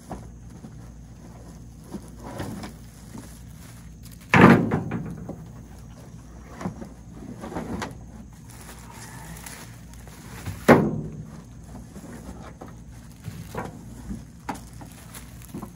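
Unpacking a boxed kayak carrier rack: plastic-wrapped metal rack parts and the cardboard box handled and set down on a pickup bed. Two heavier thuds come about four seconds in and again near eleven seconds, with lighter knocks between.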